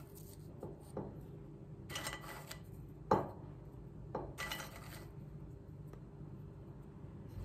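Quiet handling sounds of biscuits being laid by hand into a glass baking dish: a few small clicks, one sharp tap about three seconds in, and two short rustles, over a steady low hum.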